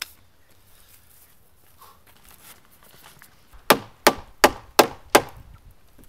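Rubber mallet striking the edge of a wooden garage door frame five times in quick succession, about three blows a second, in the second half, knocking the glued frame together.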